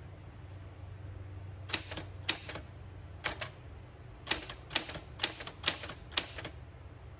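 Smith Corona Super Sterling manual typewriter being typed on: eight keystrokes at a slow, uneven pace, starting a little under two seconds in. Each typebar strikes the platen with a sharp clack, followed by a lighter click.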